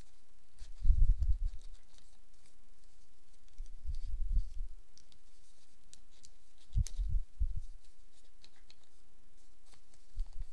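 Folded origami paper rustling and ticking as hands push and pull a modular origami octagon toward its pinwheel form, with a few dull handling bumps; one tab is sticking, so the model won't collapse smoothly.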